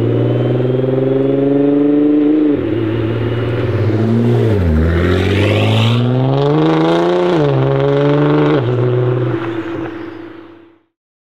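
Heavily modified 1000+ hp Nissan GT-R R35's twin-turbo V6 accelerating hard: the revs climb with a rising turbo whistle at first, drop sharply at gear changes about two and a half, seven and eight and a half seconds in, and dip and climb again around four to five seconds. The engine sound fades out and cuts off near the end.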